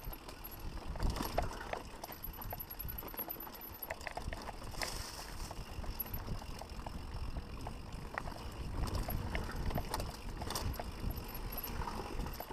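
Mountain bike descending a dirt singletrack: the tyres rumble steadily over the dirt and rocks while the bike rattles and clicks many times over the bumps.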